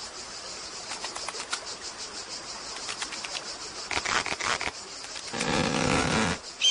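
Animated ant's vocal sound effect: a low, wavering creature call about a second long near the end, after a few faint clicks.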